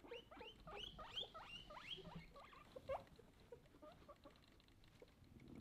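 Guinea pig squeaking: a rapid, faint run of short rising squeaks, about four or five a second, that dies away about three seconds in.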